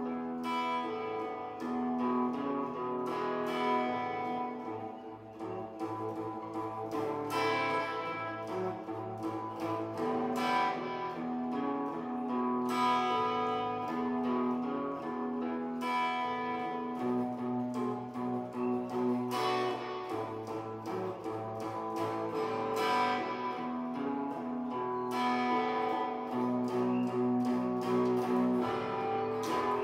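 A guitar playing a blues, plucked notes and phrases over a steady held note and a lower bass line that shifts every few seconds.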